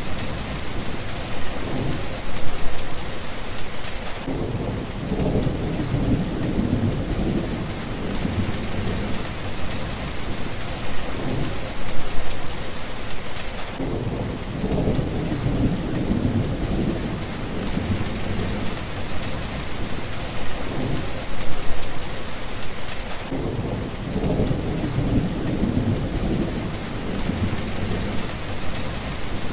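Heavy rain falling steadily, with three long low rumbles of thunder about ten seconds apart.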